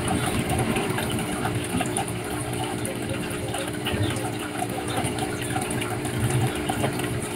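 A steady machine hum in the background, with faint small clicks and rustling as the metal hook-and-eye fasteners of a waist trainer are hooked shut by hand.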